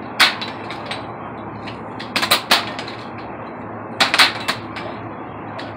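Air rifles firing on a benchrest line: sharp cracks, one about a quarter second in, then two quick groups of two or three cracks around two and four seconds in, over a steady background hiss.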